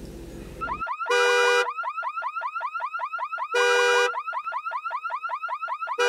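Electronic alarm siren: a fast warbling chirp repeating about six or seven times a second, broken three times by a loud, steady, blaring tone lasting about half a second.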